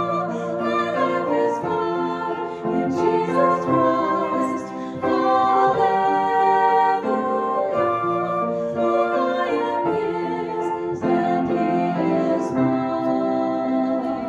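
Live worship song: a woman singing into a microphone with a concert flute playing the melody alongside, over piano accompaniment, in a steady flowing tempo.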